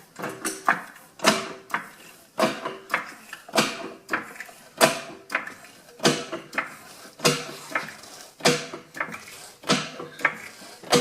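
Repeated sharp metal clanks and strikes, about one to two a second, each with a short ringing tone.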